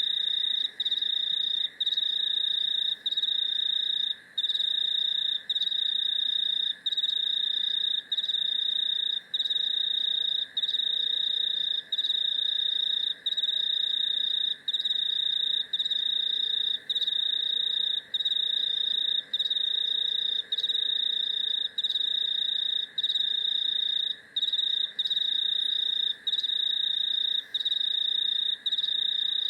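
An insect trilling: a loud, steady, high-pitched trill broken by a brief gap about once a second. A fainter, lower drone runs on underneath.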